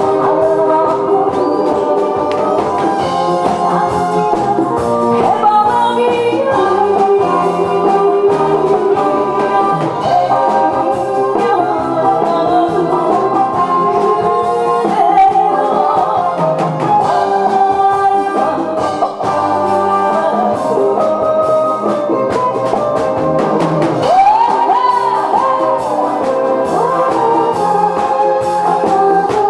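A woman singing into a handheld microphone over a loud backing track with a regular drum beat.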